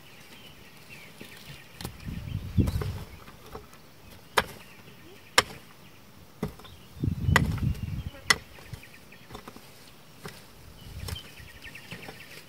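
A handful of sharp knocks about a second apart, with two stretches of low thudding, over faint high chirping in the background.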